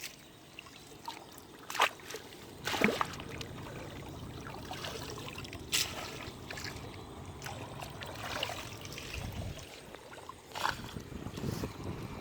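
Shallow water sloshing and trickling, broken by a few sharp splashes about two, three, six and eleven seconds in.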